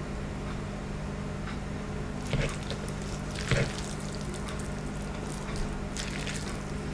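A fork lifting and twirling sauce-coated instant noodles, giving short wet squishes about two and a half and three and a half seconds in, over a steady low hum.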